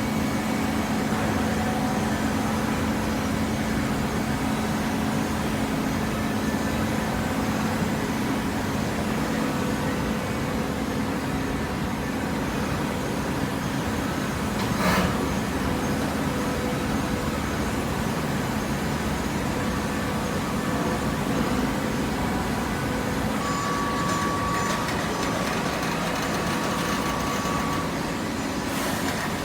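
Waste paper baler and its feed conveyor running: a steady mechanical hum with machine noise, one sharp knock about halfway through, and a thin whine in the last few seconds.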